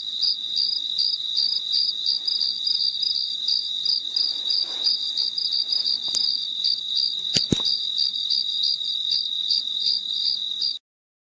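Crickets chirping: a steady high trill with a pulsing chirp about three times a second, stopping abruptly near the end. A soft double click sounds about seven and a half seconds in.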